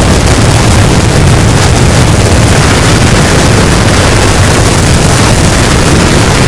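Harsh noise wall: a loud, unchanging wall of distorted static, with a heavy low rumble under hiss that reaches the top of the range.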